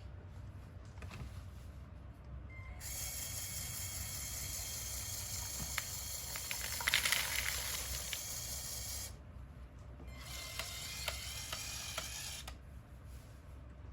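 Small electric motors and plastic gears of a LEGO Technic bulldozer model running with a high whirring whine, a few clicks among it. It starts about three seconds in, stops around nine seconds, then runs again for about two seconds before stopping.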